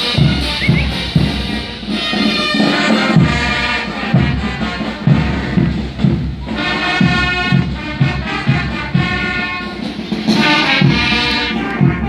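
Brass band playing carnival music: brass phrases over a regular drum beat.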